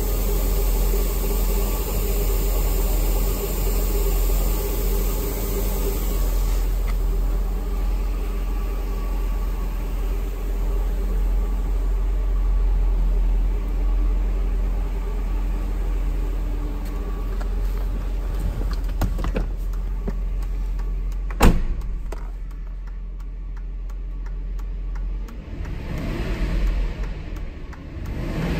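Mercedes-Benz 400E's 4.2-litre V8 idling steadily, with no fuel pump relay knocking now that the LH control module has been replaced. About three-quarters of the way through a car door shuts with a single sharp thump, and the engine is then heard more muffled.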